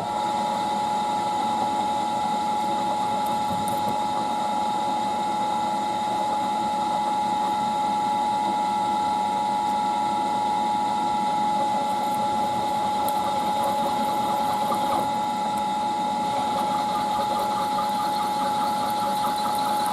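Milling machine running with a countersink cutter taking a taper into an aluminium part. Its motor gives a steady whine that starts abruptly and holds an even level.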